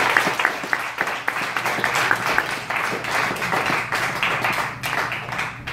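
Audience applause tapering off into scattered single claps, which die away near the end.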